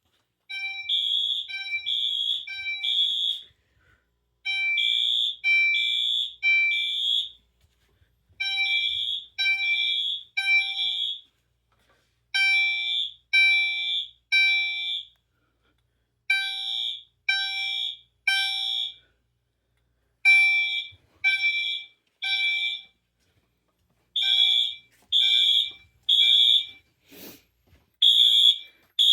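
Wheelock MT multitone horn strobe sounding its Code 3 horn: loud, steady blasts in groups of three, about every four seconds. This is the temporal-three evacuation signal. A brief knock comes near the end.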